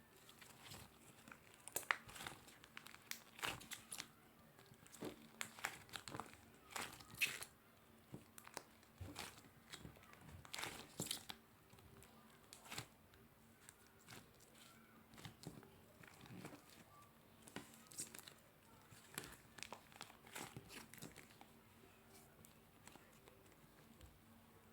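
Slime being squeezed and stretched by hand, giving irregular small pops and crackles in clusters. They thin out over the last few seconds.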